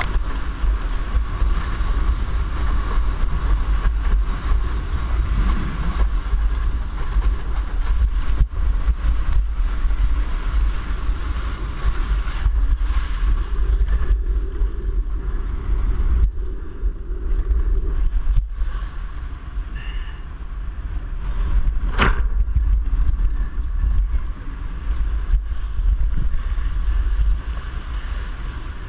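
Wind buffeting an action camera's microphone as a windsurf board sails fast over choppy water, with a steady low rumble and the rush and hiss of spray off the board. There is one sharp knock a little past two-thirds of the way through.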